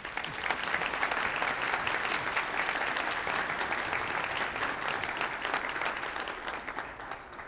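Large seated audience applauding: dense clapping that starts all at once and dies away near the end.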